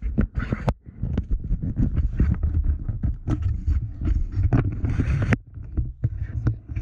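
Wind rumbling on a handheld camera's microphone, with irregular knocks and rustles from the camera being handled.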